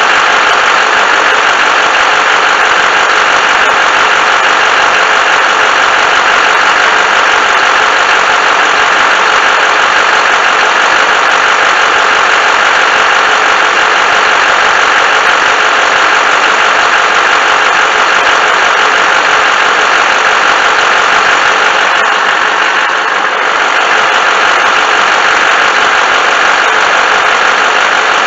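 2008 Chevy Silverado HD's Duramax 6.6 L V8 turbo-diesel idling steadily with the hood up, loud and unbroken, with the air conditioning running at full.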